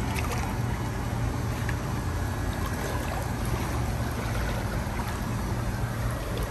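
Steady rushing noise of water and wind, strongest at the low end, with no distinct events.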